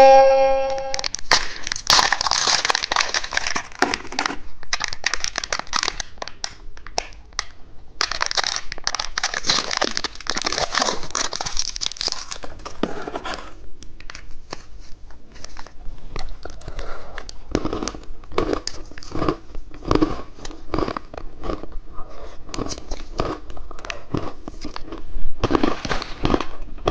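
Plastic candy packaging crinkling and tearing as a toy-car cookie egg is unwrapped, in long crinkly stretches during the first half. Then come many small clicks and crackles of the wrapper and plastic being handled.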